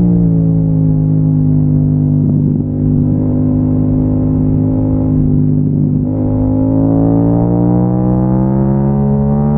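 Yamaha MT-07's parallel-twin engine pulling at steady revs under way, easing off briefly about two and a half seconds in and again around six seconds, then revving up steadily toward the end.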